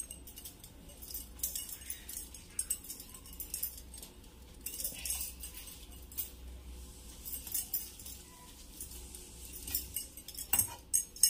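A cotton cloth bundle of fresh chhena being wrung out by hand over a stainless steel plate: irregular cloth rustling with small clinks and taps against the steel, and a sharper tap near the end.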